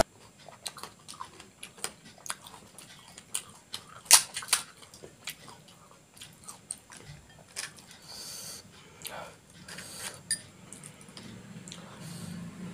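Crisp, hollow fried puri shells being handled, cracked open with a fingertip and stuffed with a chickpea and potato filling: scattered small clicks and crackles, the two sharpest about four seconds in. Near the end there is a soft wet sound as the filled puri is dipped into the spiced water.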